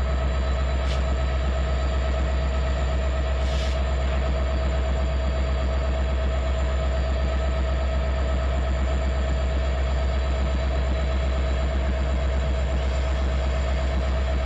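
Norfolk Southern freight train's diesel locomotives and cars running with a steady deep rumble and hum, with two brief high-pitched sounds about one and three and a half seconds in.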